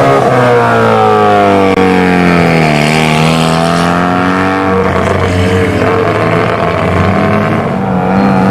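Race-car engine sound, likely an added sound effect for the toy car, revving: the pitch sinks over the first few seconds, climbs back and then holds fairly steady at a high rev.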